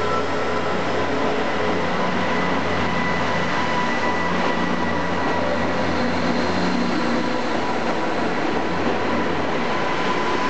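Resort Shirakami Kumagera-set train pulling out of the platform and moving past at low speed: a steady running noise with a low hum and a thin, steady whine.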